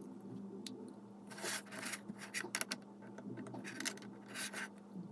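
Plastic Lego pieces being handled and rubbed together, a few soft scraping rustles over a steady low hum.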